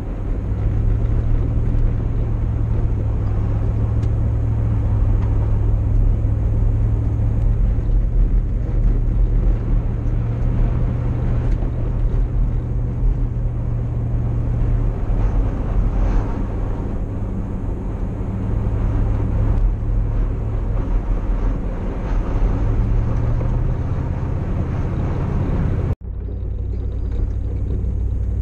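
Truck driving on a dirt road: steady low engine and tyre rumble from inside the cab. An abrupt cut about 26 seconds in leaves the rumble duller, with less hiss.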